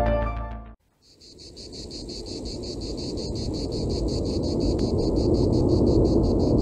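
Music ends about a second in. Then a fast, even, high-pitched chirping of insects starts over a low rushing noise that slowly grows louder.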